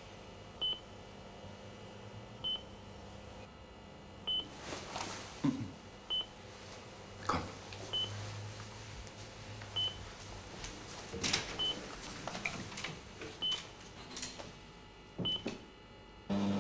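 Hospital bedside patient monitor beeping: one short, high beep about every two seconds, steady and even, over a low hum, with a few soft hisses between the beeps.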